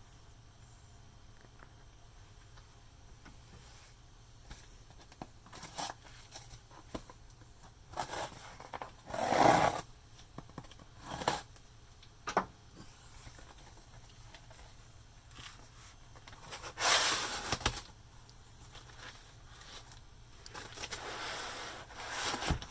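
Cardboard box and packing being handled and opened: scattered scrapes and rustles, with louder bursts about nine seconds in and again about seventeen seconds in.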